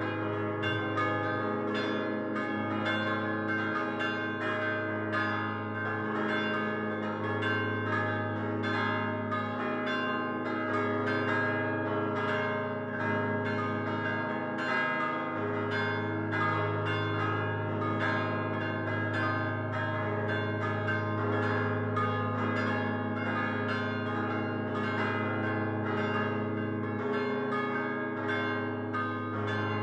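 The five Barigozzi bells (1928) of Luqa's parish church ringing a solemn full peal in C, A-flat, E-flat, C and A-flat: the bells hang fixed and are struck by hand-swung clappers, the lighter bells in rapid succession over the long-held hum of the 3.5-ton tenor.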